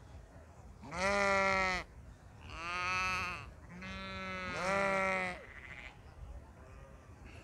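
Sheep bleating: three long, loud bleats in quick succession, the middle one with a wavering tremble.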